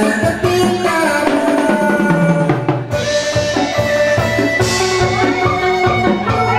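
Vietnamese chầu văn ritual music: a plucked moon-lute (đàn nguyệt) melody over steady drum strokes.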